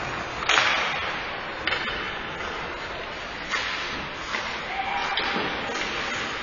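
Ice hockey sticks cracking against the puck during play, several sharp cracks, each followed by an echo around the arena. The loudest crack comes about half a second in.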